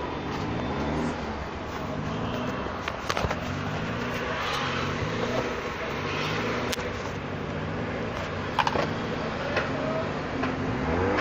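A steady machine hum with a low rising tone that repeats about every second and a half, with a few sharp clicks from a screwdriver working on the plastic console trim.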